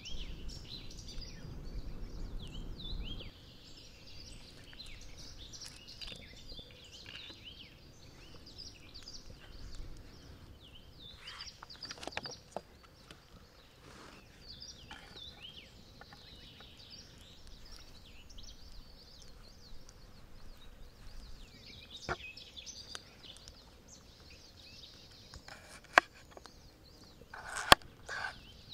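Wild birds chirping and twittering on and off, with a low rumble for the first three seconds. A few sharp knocks stand out, the two loudest close together near the end.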